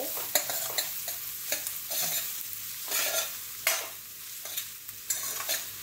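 Sliced onions sizzling in oil and butter in a steel kadhai, with a metal spatula scraping and knocking against the pan every second or so as they are stirred. They are being fried until golden brown.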